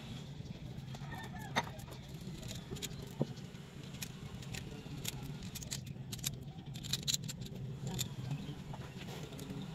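Scattered light metal clicks and clinks, thickest in the second half, from engine parts and tools being handled during cylinder-head reassembly, over a steady low hum.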